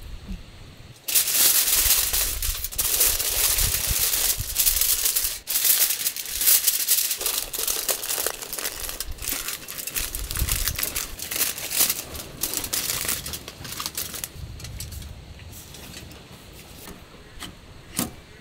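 Aluminium cooking foil being crumpled and folded by hand into a makeshift pan, a loud, dense crinkling that starts suddenly about a second in and goes on for some thirteen seconds. A single sharp click comes near the end.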